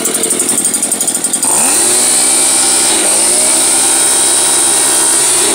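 Stihl BG 86 leaf blower's two-stroke engine revving from a low, pulsing idle up to full throttle about a second and a half in. It holds high with a brief dip near the middle, then drops back toward idle at the end.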